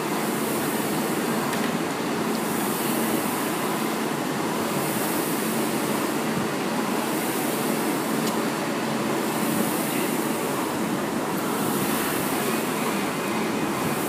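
Rowing machine's fan flywheel whooshing under steady strokes, the hiss swelling about once every two seconds.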